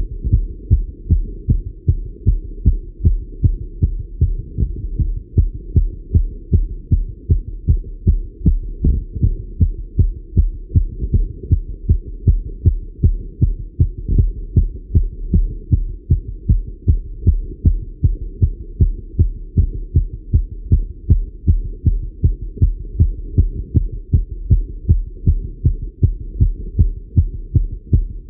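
A man's fast heartbeat heard through a Littmann stethoscope, raised by riding a bike. The deep lub-dub thumps keep an even rhythm.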